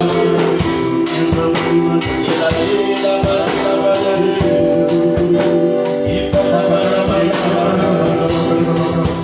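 Music: sustained chords over a steady beat of about two drum strikes a second.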